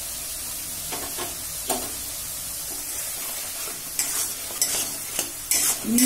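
Spice paste frying in mustard oil in a metal kadai, sizzling steadily while a metal spatula stirs and scrapes it; the masala is being cooked until the oil separates. The scraping strokes come more often and louder from about four seconds in.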